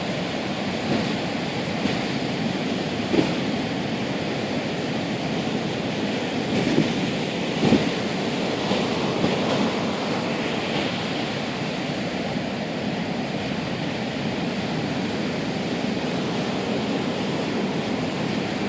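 Surf breaking in strong wind: a steady, loud wash of noise, with a few short thumps where the wind hits the microphone.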